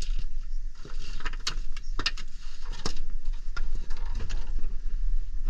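Handling noise: scattered clicks, knocks and rustling of hands and parts being moved around at an HVAC unit, over a steady low hum.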